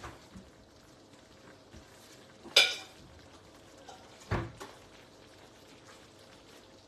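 Two sharp clatters of kitchenware being handled, the first louder, about two and a half seconds in and again just after four seconds, over a faint steady background.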